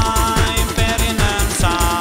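Background music with a fast, steady bass drum beat under held chords.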